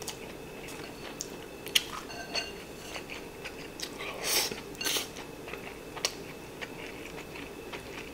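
A person eating a rice bowl with chopsticks: sharp clicks of the chopsticks against the ceramic bowl and soft chewing, with a short rush of noise about four seconds in as a mouthful of rice is shovelled in.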